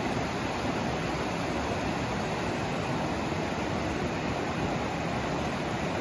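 Water of a mountain stream rushing over rocks in rapids below a waterfall: a steady, even rush with no breaks.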